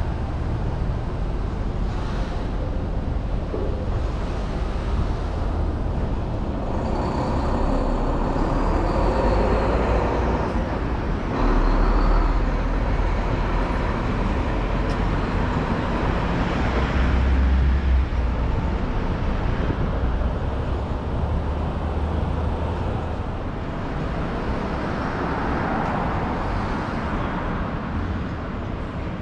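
Road traffic on a city street: cars and trucks passing one after another over a steady low rumble, the nearest passes loudest about twelve seconds in and again near eighteen seconds.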